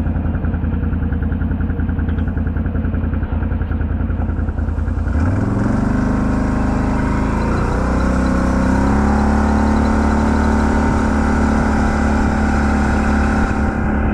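A vehicle's engine running, picking up speed about five seconds in with its pitch rising, then running steadily at the higher pitch.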